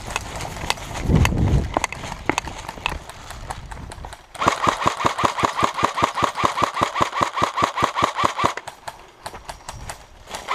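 Airsoft rifle firing a long full-auto burst of rapid, evenly spaced shots, starting about four seconds in and lasting about four seconds. Scattered clicks come before it.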